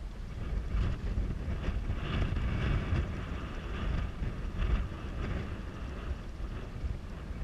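Wind noise on the microphone: a low rumble rising and falling in gusts, with a hiss that comes and goes.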